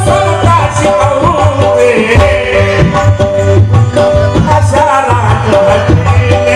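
Instrumental passage of a Marathi folk-devotional song: a hand drum (tabla) beats a steady rhythm under held, stepping melody notes.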